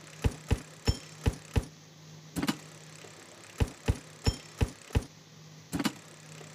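Online slot game sound effects: five short clicks in quick succession, about three a second, as the five reels stop one after another, then a single click as the next spin starts, and the run of five stop clicks comes again. A faint steady hum underneath.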